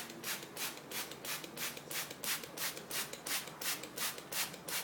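Hand-squeezed trigger spray bottle misting water, a short hiss with each squeeze, repeating evenly about three to four times a second.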